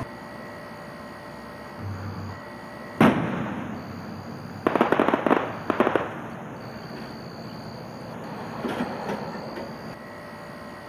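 Fireworks display: one loud aerial shell burst about three seconds in, with an echoing tail, followed a second later by a quick run of sharp pops, then a softer burst near the end.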